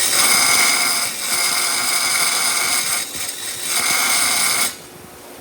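A power abrasive tool grinding steel: a bolt's end being ground and sanded into a flat screwdriver tip. The grinding hiss and whine break off briefly about a second in and again around three seconds as the work is lifted and pressed back. It stops near the end, leaving the tool running more quietly.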